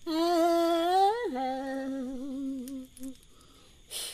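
Shipibo curandera's solo voice singing the closing notes of an ikaro (healing song): a long held note that climbs and then falls about a second in, then a lower, wavering note held until about three seconds in. Near the end comes a short puff of breath.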